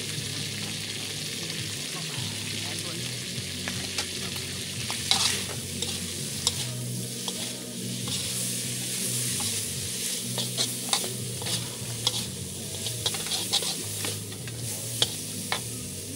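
Vegetables sizzling as they are stir-fried in a hot pan, with frequent sharp clicks and scrapes of the spatula against the pan.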